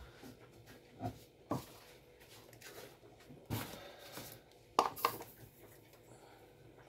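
A few short, light knocks and clicks of kitchen things being handled: a plastic measuring cup and an ingredient jar. There are about five, with a close pair about five seconds in, over quiet room tone.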